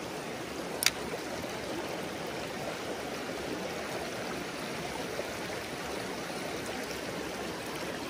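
Shallow mountain stream running steadily over a pebbly riffle. A single sharp click comes a little under a second in.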